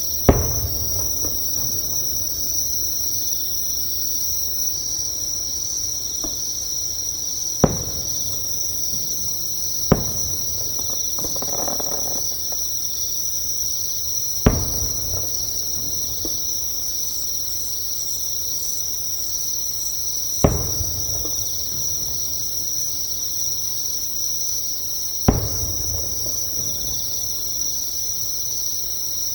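Insects calling close by in a steady, high, unbroken trill, while distant fireworks burst with a sharp bang about six times, each trailing off in a short rumble.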